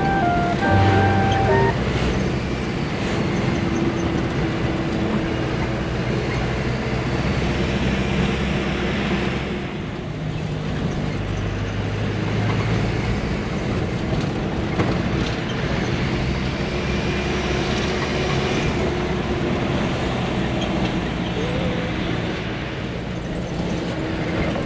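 Diesel bus engine running with road noise, heard from inside the cabin of the moving bus. The engine note steps up and down now and then.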